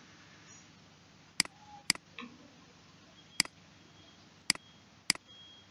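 Computer mouse clicks: five sharp, separate clicks at uneven intervals over faint background hiss.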